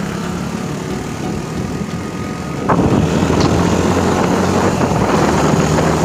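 Motorcycle engine idling close by, a steady low hum that gets louder and rougher about three seconds in.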